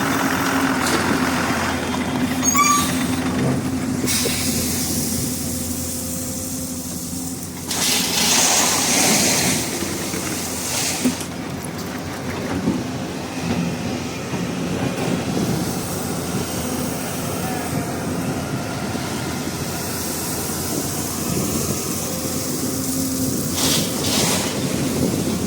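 Hyundai 215 tracked excavator's diesel engine running steadily under work load, with louder spells of mechanical noise about eight seconds in and again near the end.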